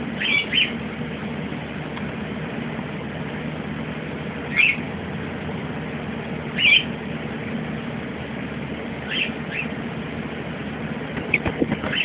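Short, high-pitched animal chirps, one or two at a time every two to three seconds and a quicker run of them near the end, over a steady low hum.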